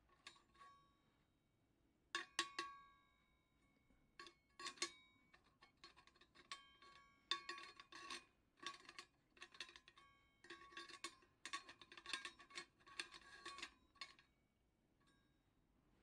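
Metal clinking and knocking as the pot support of a Coleman 508A Sportster gasoline stove is worked loose and lifted off the burner: many sharp clinks, some ringing briefly, in irregular clusters.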